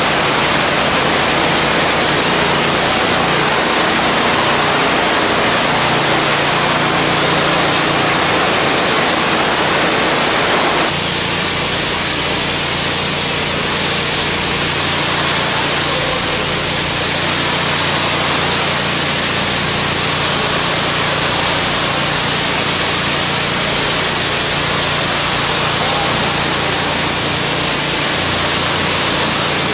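High-pressure water spray from a washer lance blasting a tiled tunnel wall: a steady loud hiss with a low steady hum underneath. About eleven seconds in, the hiss abruptly turns brighter and fuller as the spray is heard close up.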